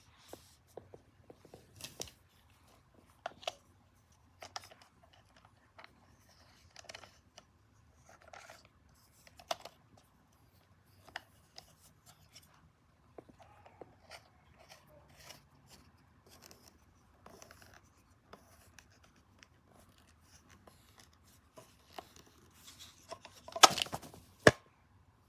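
Scattered clicks, taps and scrapes of hard plastic being handled: a baby-monitor camera and its clip-on holder being fitted together and the holder's screw clamp tightened. A louder clatter of knocks comes near the end.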